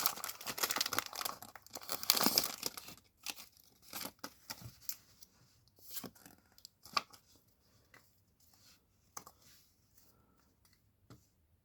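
A Pokémon card pack's foil wrapper being torn open with crinkling for the first few seconds, then scattered quieter rustles and taps as the cards are handled.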